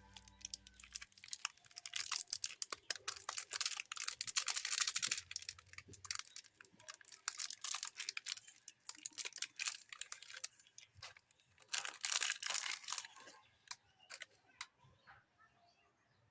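Chocolate and candy wrappers being unwrapped: plastic and foil crinkling and tearing in a rapid run of crackles, thinning out toward the end.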